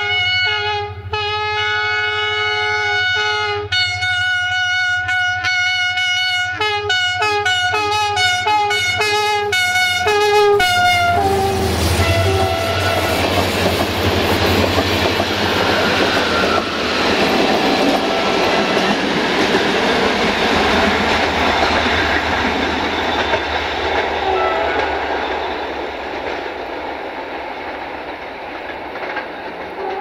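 Multi-tone air horn of a CFR class 65 diesel-electric locomotive sounded in a long run of blasts that switch between chords, quickening into rapid short toots. About eleven seconds in, the locomotive's engine passes with a low rumble and the passenger coaches roll by with wheel and rail noise that slowly fades, with a short horn note near the end.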